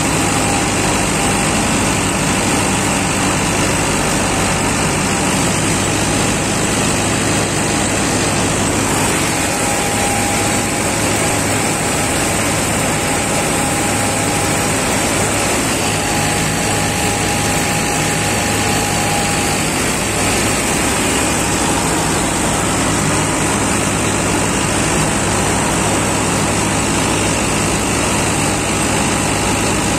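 Mahindra Novo diesel tractor engine running steadily under load while it drives a reaper attachment through a standing dry crop. The engine and reaper mechanism make one continuous, unchanging mechanical din.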